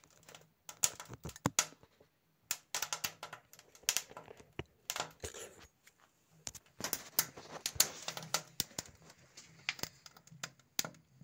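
Split-wood kindling burning in a small forge, crackling with many irregular sharp pops.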